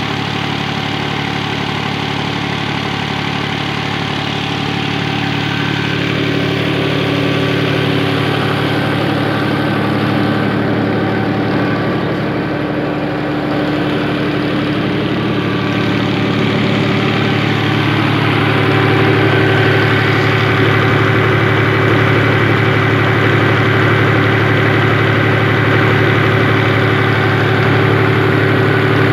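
Massey Ferguson 260 Turbo tractor's three-cylinder diesel engine running steadily while it drives a tubewell pump through its PTO shaft, getting a little louder partway through.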